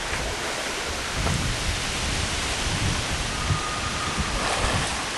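Wind buffeting an outdoor microphone: a steady rushing hiss with irregular low rumbles.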